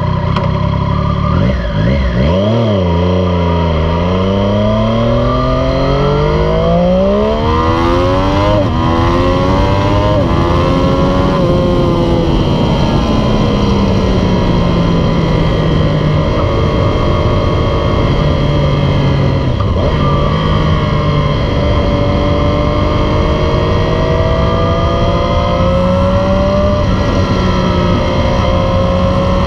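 Triumph Street Triple 765 RS inline three-cylinder engine through a loud Yoshimura Alpha T exhaust, pulling away from a standstill and accelerating hard. The pitch climbs and drops back at each upshift over the first dozen seconds, then falls as the throttle eases, and rises gently again near the end.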